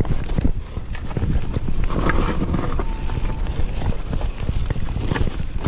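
Mountain bike rolling down a rough dirt singletrack: tyres on dirt with a steady rumble, and the frame, chain and suspension clattering in quick knocks over the bumps, picked up by a camera on the rider.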